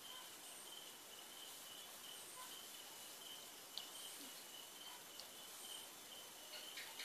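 Near silence: faint background hiss with a steady, high-pitched chirring tone that pulses on and off. A few faint clicks come near the end.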